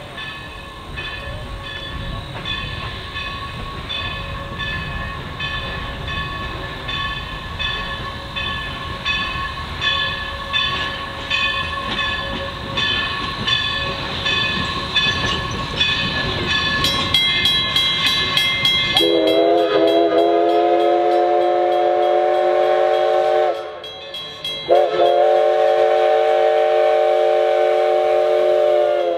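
Everett Railroad No. 11 steam locomotive approaching, its bell ringing with steady, even strokes over the low rumble of the moving engine. About two-thirds of the way through, the steam whistle sounds a chord in two long blasts separated by a brief break.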